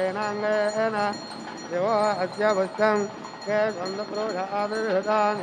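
Devotional melody, sung or played, moving in ornamented, wavering pitch glides over a steady drone.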